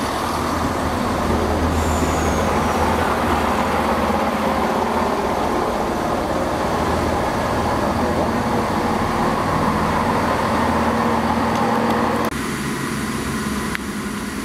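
Diesel multiple unit's engines running steadily as the train draws along the platform, a loud drone under a hiss. About twelve seconds in, the sound drops abruptly to a quieter steady hum with a faint high whine, typical of the unit standing at the platform with its engines idling.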